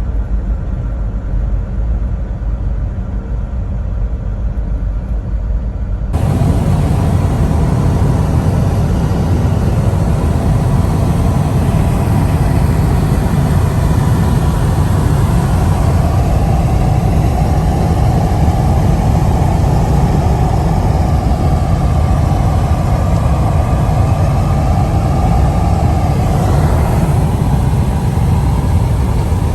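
Semi truck's engine and road noise: a steady low rumble. About six seconds in it cuts abruptly to a louder version with more hiss.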